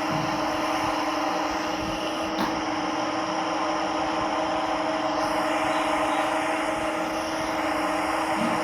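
CNC lathe running steadily: an even machine hum with a few constant tones over a noisy whir, and one faint tick about two and a half seconds in.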